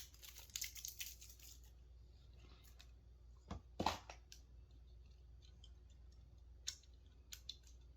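Faint crackling and tearing of a strip of tape being pulled off and pressed down over small mouse switches on a circuit board. It is followed by scattered light clicks of the parts being handled, the loudest about four seconds in.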